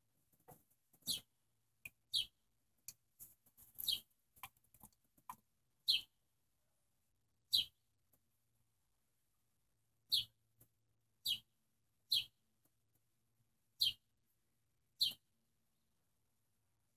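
A small bird chirping: single short, high chirps repeated about a dozen times at uneven gaps of one to two seconds.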